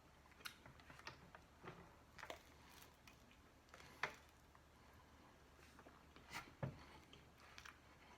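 Near silence broken by faint, scattered clicks and taps of a person biting into and chewing a piece of bread, the two strongest about four and six and a half seconds in.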